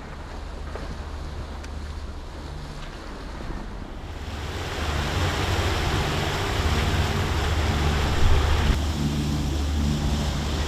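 Wind buffeting the microphone and water rushing past a boat under way, over a low, steady engine drone. The wind and water noise grows much louder about four seconds in.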